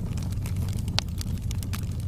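Campfire crackling: a steady low rumble of burning wood with scattered sharp pops, the loudest about a second in.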